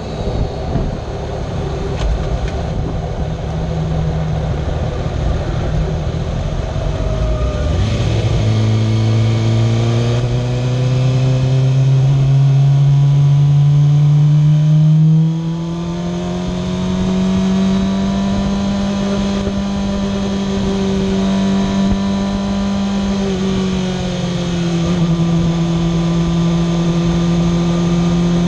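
Kawasaki ZX-6R's inline-four engine pulling on the move, its pitch climbing steadily from about a third of the way in. About halfway through it eases off and holds a steady cruising note, dipping slightly near the end, with wind and road noise throughout.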